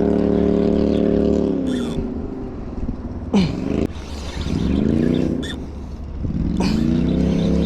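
Boat motor running, throttled down about a second and a half in, briefly revved up and down around the middle, then brought back up to a steady pitch near the end. A few short knocks and clatters on top.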